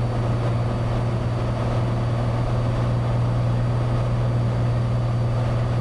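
Cessna 182's piston engine and propeller droning steadily in level flight, heard inside the cabin.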